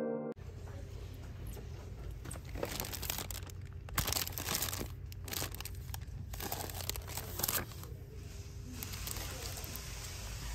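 Cellophane and plastic product packaging crinkling and rustling in irregular bursts as a hand handles packaged Easter items on a store shelf, over a steady low background hum.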